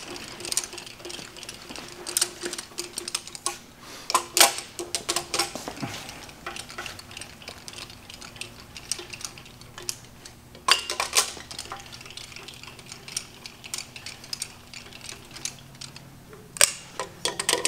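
Irregular metallic clicks and clinks of wrenches, sockets and loose bolts as the cylinder-head bolts are taken out of a Chrysler 440 V8, over a faint steady hum.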